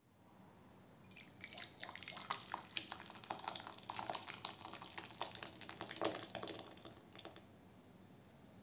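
Thick chicken and carrot soup poured into a ceramic bowl, with many irregular splashes and drips that stop about seven seconds in.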